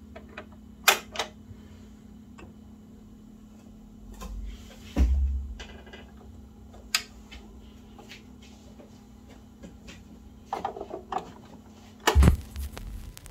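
Automatic turntable starting up: a steady motor hum with scattered mechanical clicks and knocks as the tonearm mechanism swings the arm out. About twelve seconds in there is a thump as the stylus sets down on the record, then an even hiss of the vinyl's lead-in groove.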